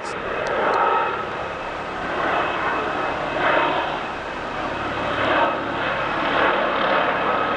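MD 902 Explorer, a twin-turbine NOTAR helicopter, flying by overhead: a steady rushing rotor and engine noise with a faint turbine whine, swelling and easing every second or two.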